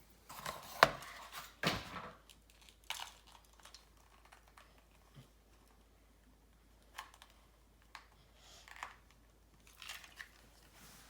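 Toy packaging being torn and crinkled as a toy engine is freed from its box, with a few sharp crackles in the first two seconds, then scattered small clicks and rustles.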